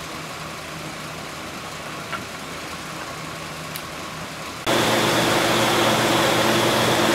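Electric floor fan running with a steady motor hum and rush of air; about two-thirds of the way in the sound suddenly jumps to a much louder, fuller hum with a high whine.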